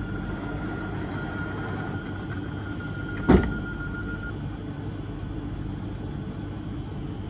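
Sliding passenger doors of a stationary Regio2N (Z57000) electric train closing. A steady high tone sounds, the doors shut with a single loud bang a little over three seconds in, and the tone stops about a second later, over the steady hum of the waiting train.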